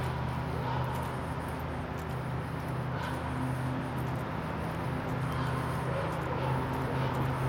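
Recorded dog barking played through a loudspeaker, in scattered barks over a steady drone of highway traffic.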